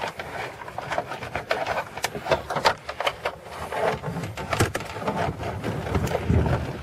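Plastic interior trim in a car being worked loose and pulled off by hand: a quick, irregular run of clicks, knocks and rattles.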